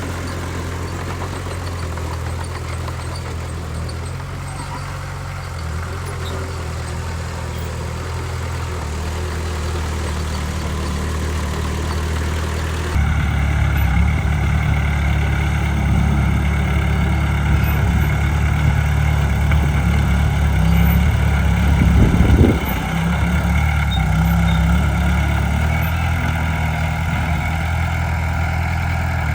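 Heavy diesel earthmoving machinery running steadily. The engine sound gets suddenly louder about halfway through, and there is a brief loud surge a little later.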